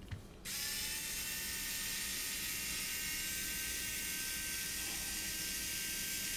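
Cordless electric screwdriver running, driving a small screw into a carbon-fibre drone frame. The motor whine starts about half a second in, rises a little in pitch as it spins up, then holds steady.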